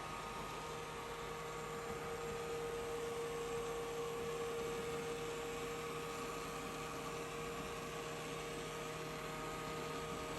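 Experobot robot vacuum running, a steady motor hum with a held whine over a light fan hiss, the whine swelling slightly in the middle.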